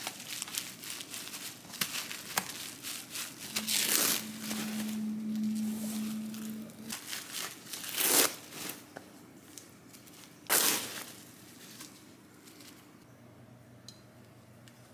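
Gimbap being rolled and handled: crinkling and rustling of the dried laver sheet and rolling mat under gloved hands, with scattered small clicks and louder rustles about four, eight and ten and a half seconds in. A low steady hum sounds for about three seconds in the middle.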